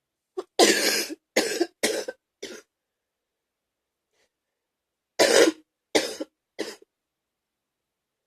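A person's wet, gaggy cough in two bouts: four hard coughs in quick succession, then after a pause of a few seconds three more, each shorter and weaker than the first.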